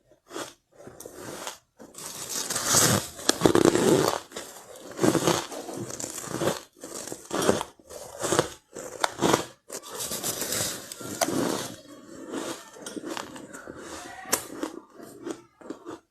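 Close-up biting and chewing of soft powdery ice, a run of irregular crisp crunches, loudest and densest a few seconds in.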